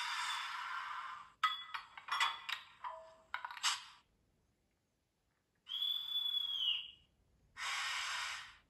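Sound effects from the ESU sound decoder fitted to a Märklin H0 Krokodil Ce 6/8 model electric locomotive, played through the model's loudspeaker. A steady air hiss stops about a second and a half in, followed by a quick run of clanks and clicks. About six seconds in comes a short whistle over a hiss, then a final brief hiss.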